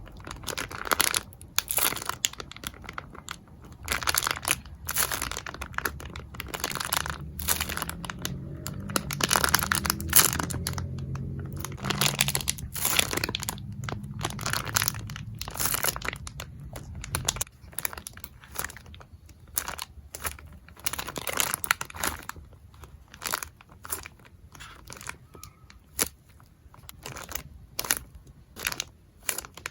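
Plastic packaging crinkling and tearing in irregular bursts as squishy toys are unwrapped and handled, with a low hum underneath through the first half.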